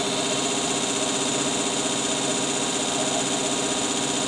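Early rotating-armature alternator running as a DC motor off a small bench power supply, at about 4.5 volts DC and drawing 10 amps: a steady mechanical whir with several constant tones.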